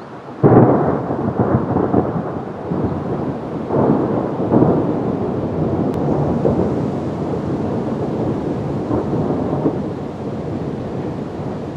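Thunder: a sudden loud clap about half a second in, then a long rolling rumble that swells again around four seconds and slowly dies away.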